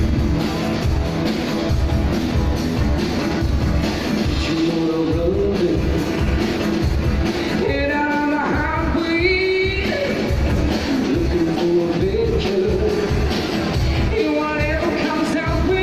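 Live rock band playing electric guitars, bass and drums, with a singer's vocal lines over a steady beat.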